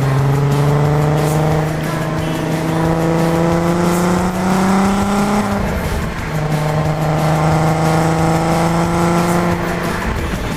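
Volkswagen Golf R32's VR6 engine on its stock exhaust, pulling under acceleration with a slowly rising note. About six seconds in the note breaks and drops, as at a gear change, then rises again, and it falls away near the end.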